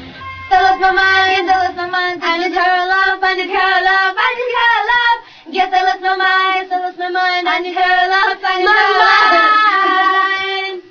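A young woman's voice singing unaccompanied in a high register, holding long notes with vibrato in phrases broken by short pauses. A low accompaniment drops away in the first two seconds.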